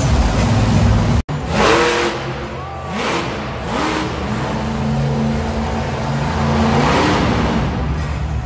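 Bigfoot monster truck's engine revving hard in repeated bursts, each rev rising in pitch, as the truck climbs onto crushed cars. The sound cuts out for an instant about a second in.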